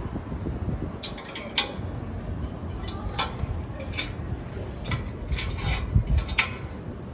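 Scattered light metallic clinks and taps, a dozen or so in small clusters over several seconds, over a low rumble.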